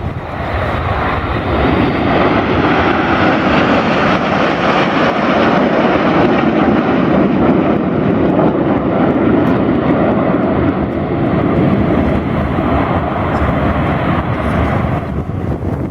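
Loud jet aircraft engine noise from an aircraft flying past, building over the first couple of seconds, holding steady, then falling away near the end.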